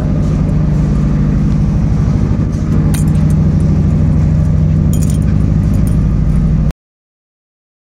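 An engine running steadily at idle, a low hum with a fast, even pulse, with a couple of light clinks like keys. All sound cuts out abruptly about a second before the end.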